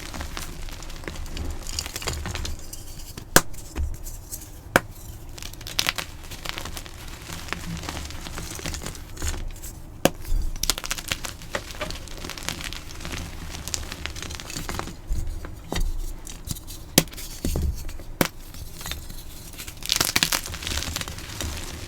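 Dyed gym chalk blocks being crushed, crunching and crumbling, with a sharp crack every second or two between stretches of crispy crunching.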